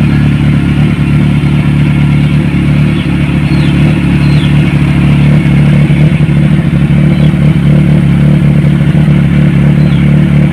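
Kawasaki Ninja 1000SX inline-four running steadily through a Yoshimura R77 slip-on exhaust canister, loud, with an even, unchanging engine note and no revving.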